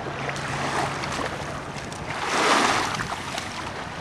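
Small waves washing onto a sandy shore, one wash swelling up and dying away about halfway through.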